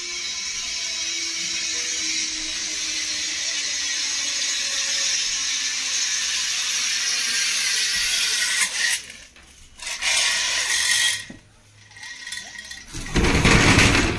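Zip line trolley pulleys rolling fast along the steel cable: a steady hiss with a faint whine that falls in pitch, slowly growing louder. It cuts off about nine seconds in, and short bursts of noise follow, then a loud rush of noise near the end.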